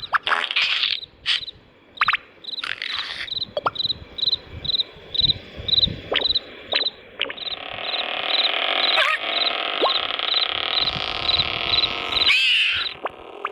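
Cartoon soundtrack: a steady chirping repeated about twice a second, like night-time crickets, under scattered short effects (clicks, squeaks and a few quick pitch slides). A fuller sustained sound swells up in the second half.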